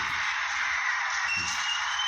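Crackly wartime air-raid recording played back, a thin, steady hiss with a faint, slowly rising whistle about a second in.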